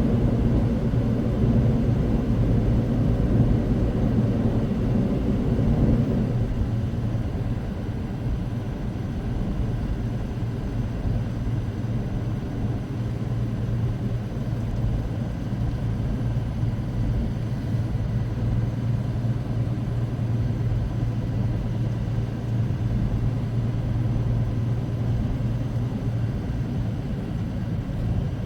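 Semi truck's diesel engine and road noise heard from inside the cab while driving: a steady low drone that eases off about six seconds in.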